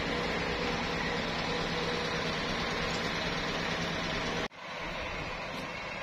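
Steady mechanical hum and hiss of sawmill machinery running. It breaks off abruptly about four and a half seconds in, then carries on a little quieter.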